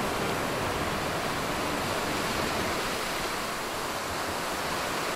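Sea surf breaking and washing over a rocky shore: a steady rush of waves.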